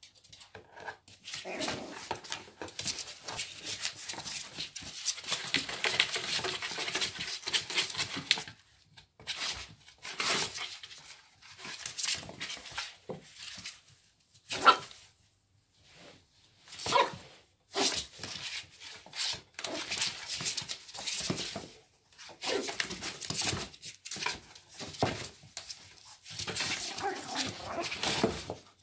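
Maltese puppies scrabbling about in a cardboard box, claws scratching and scuffing the cardboard in long scratchy spells. A few short yips or barks come in the second half, the loudest about halfway through.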